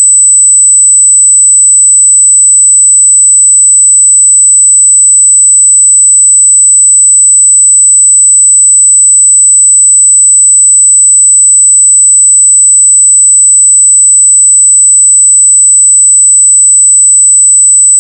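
Pure 8 kHz sine-wave test tone at full-scale level (0 dB), a single high-pitched, unchanging whistle with no other sound.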